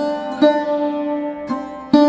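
Background music: a plucked string instrument playing a slow melody, each note struck sharply and left to ring. A new note sounds about every half second to a second.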